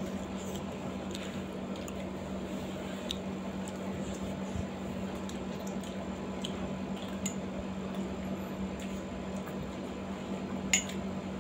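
Close-up eating sounds: wet, squishy chewing of steamed chicken momos and spicy noodles, with scattered light clicks of a fork on a steel plate and one sharper click just before the end. A steady low hum runs underneath.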